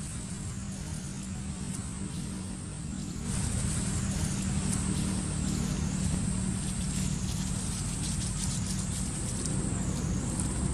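Outdoor ambience: a steady low hum under a high, shrill buzzing that swells and dips every second or two. The buzzing grows louder about three seconds in.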